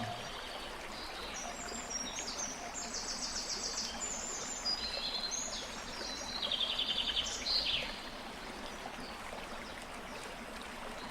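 Birds chirping in short high phrases, some as rapid trills, over the steady hiss of running water; the calls come between about one and a half and eight seconds in, loudest just before the end of that stretch.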